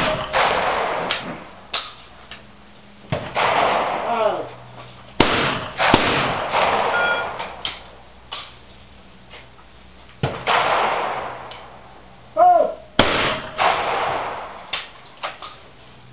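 Shotgun shots at an ABT clay-shooting line, several shooters firing in turn at clay targets, about ten sharp reports, some in quick pairs of two barrels, each one echoing for about a second under the shelter roof. Short shouted calls come between the shots.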